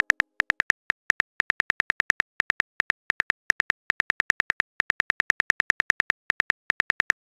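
Phone keyboard typing sound effect: a rapid train of short, identical clicks, several a second, in runs with brief pauses between them.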